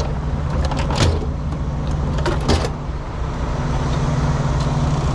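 A steady low engine drone of an idling vehicle, with a few sharp scrapes and clicks of a metal gasket scraper working on the truck's axle flange, about one a second in the first half.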